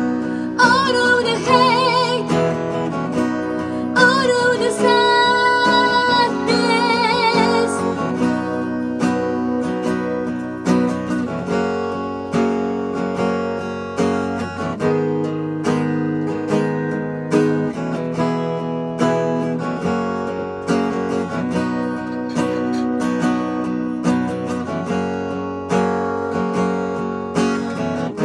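A woman's voice sings long held notes with vibrato over acoustic guitar for the first several seconds. Then the acoustic guitar plays on alone in steady strummed chords.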